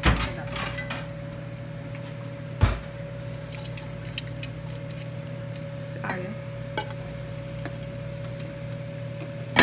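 Crab sticks frying in oil in a pan, over a steady low hum, with sharp knocks of a metal utensil or pan at the start, about two and a half seconds in, and at the end, and a few faint clicks between.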